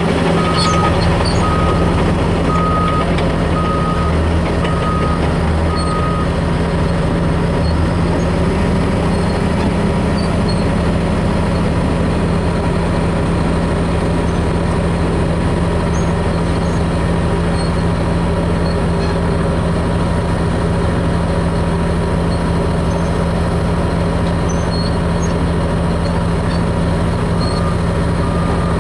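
Bulldozer's diesel engine running steadily, with its reversing alarm beeping about once a second for the first six seconds and again near the end.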